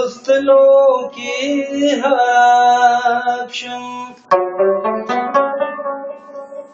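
Pashto rabab (rubab) being played: long ringing notes first, then from about four seconds in a quick run of sharply plucked notes.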